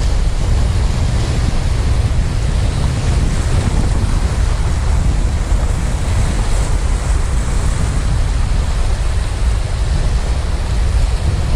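Sea surf washing and breaking over shoreline rocks, with wind buffeting the microphone in a steady low rumble.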